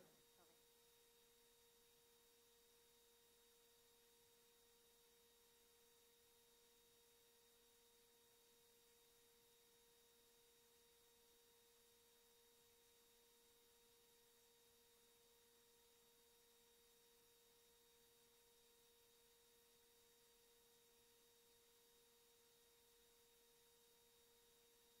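Near silence, with only a faint steady tone.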